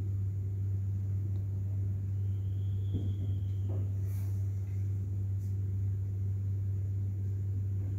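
A steady low hum, with a couple of faint clicks about three seconds in.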